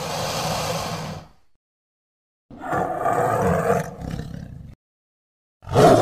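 Postosuchus creature vocal sound effects: three separate calls, the first fading out about a second in, the second after a second of silence, and the third starting near the end.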